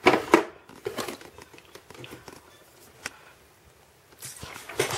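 Handling noise: a few light knocks and clicks as the camera is moved over the acrylic makeup storage boxes, with one sharp click about three seconds in and a soft rustle near the end.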